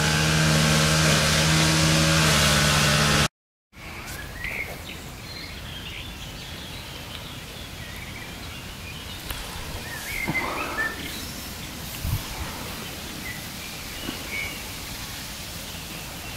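A steady vehicle engine hum for about the first three seconds, cut off abruptly. Then quiet outdoor ambience with a few short bird chirps scattered through it.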